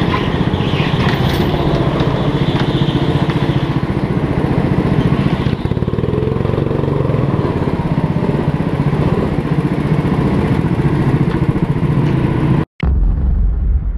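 Rental go-kart's engine running steadily under way, heard from the kart itself with tyre and chassis noise. Near the end the sound cuts off abruptly and a loud low boom follows.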